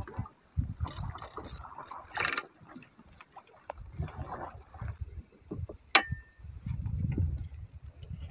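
Light clicks, ticks and soft knocks of fishing tackle being handled in a wooden boat, with one sharp tick about six seconds in. A steady high-pitched whine runs underneath throughout.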